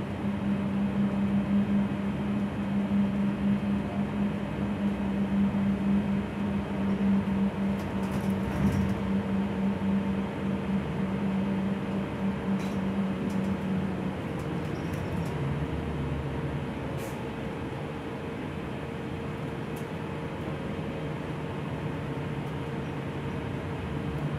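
Gillig low-floor city bus heard from inside while under way: a steady drivetrain hum over road and cabin noise. A little past halfway the hum drops to a lower pitch.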